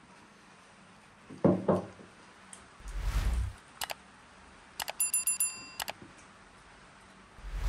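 Subscribe-button animation sound effects: a whoosh, then mouse clicks, then a bell ringing with rapid clicks for about a second, and another whoosh near the end. A short loud sound comes about a second and a half in.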